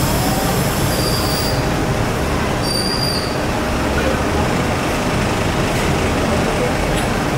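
Steady, loud noise of a welding workshop: a continuous hiss with a low hum, and short high whines about one and three seconds in.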